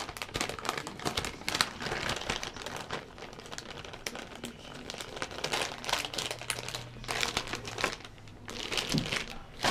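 Plastic packaging crinkling and rustling as it is handled, with irregular crackles throughout.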